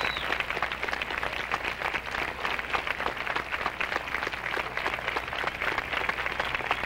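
A large crowd of graduates applauding: dense, steady clapping.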